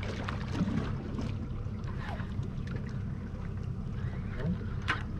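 Boat engine running steadily, a low idling hum, with a few faint short ticks over it.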